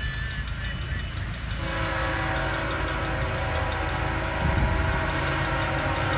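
Union Pacific diesel freight locomotives rumbling as they approach; about a second and a half in, the locomotive horn starts a long, steady chord that holds through the rest.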